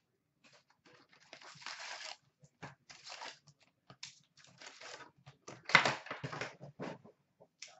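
Hands unboxing a sealed box of hockey cards: a paper insert sheet rustling and cardboard and card packs sliding, tapping and clacking as the packs are lifted out, with one louder clatter toward the end.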